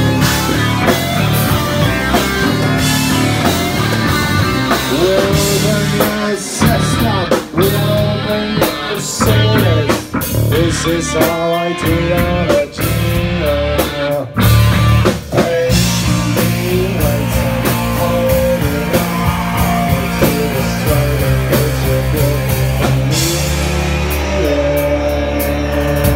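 A rock band playing, with electric guitar and a drum kit. Notes slide up and down in pitch through the middle stretch, and a long note is held near the end.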